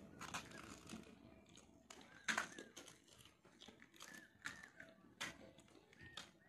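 Pani puri being eaten: crisp puri shells cracking and crunching, heard as faint scattered crackles and clicks, with one sharper crack a little over two seconds in.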